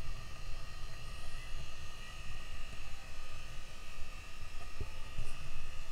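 Wind buffeting the microphone in uneven gusts over the boat's machinery running with a steady hum and a high whine.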